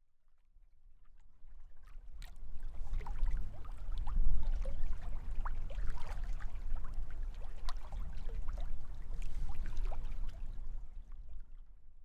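Small waves lapping and splashing on a lake, many short irregular splashes over a steady low rumble, fading in over the first few seconds and fading out near the end.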